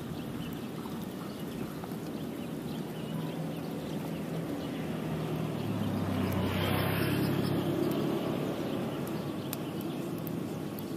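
A motor engine running with a steady low hum, swelling louder about six to eight seconds in and easing off again, as a vehicle or boat passing by would.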